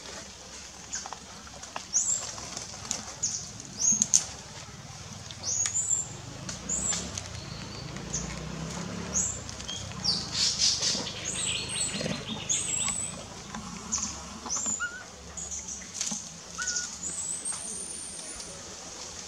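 Short, high chirping calls from an animal, repeated about once a second, with a longer rising call near the end, over scattered rustling and scratching.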